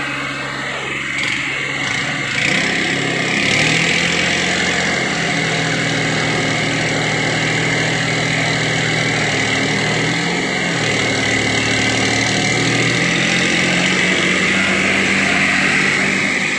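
New Holland 3630 diesel tractor engines running hard under load in a tug-of-war pull. The revs climb about three and a half seconds in and dip briefly near eleven seconds, over a steady hiss.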